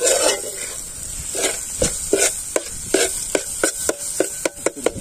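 Metal spatula scraping and clinking against an aluminium pot as eggs are broken up and mixed into an onion-tomato masala, over a steady frying sizzle. The strokes come about twice a second and quicken near the end.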